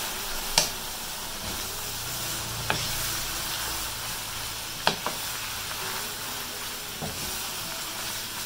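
Sliced bell peppers, onion and carrot sizzling in a frying pan with a steady hiss, stirred with a wooden spatula that knocks sharply against the pan several times.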